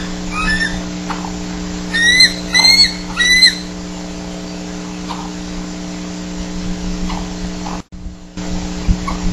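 Bald eagle calling: two fainter high chirped notes at the start, then three loud, sharp, slightly rising notes about two to three and a half seconds in, over a steady electrical hum.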